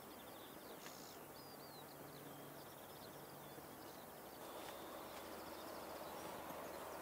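Small birds singing, with many short high chirps and quick trills, over a faint steady background rumble that grows a little louder about four and a half seconds in.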